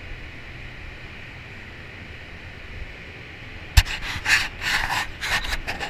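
Steady hum and hiss of spray-booth ventilation running. Almost four seconds in, a sharp knock and then rustling and scraping as a gloved hand handles the camera.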